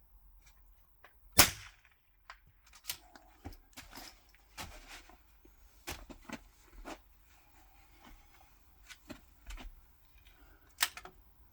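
.22 LR rimfire rifle shot, a sharp crack about a second and a half in, followed by several small clicks and rattles, then another sharp crack near the end.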